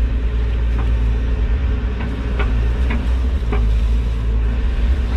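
Hyundai HX145 excavator's diesel engine running steadily under hydraulic load, heard from inside the cab, with a few short knocks as the bucket digs and scoops dirt.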